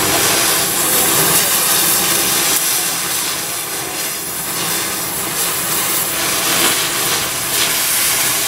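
Oxy-fuel cutting torch slicing through the steel floor of a pickup bed: a steady, loud hiss of the cutting jet.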